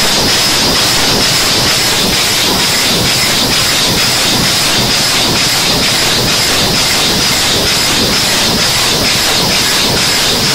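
Bosch-Hesser sugar packing machine running at speed: a steady, fast mechanical clatter of its carton-forming stations under a continuous high hiss.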